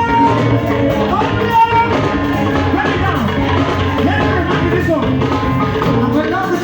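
Upbeat live gospel band music with a steady beat, voices singing along.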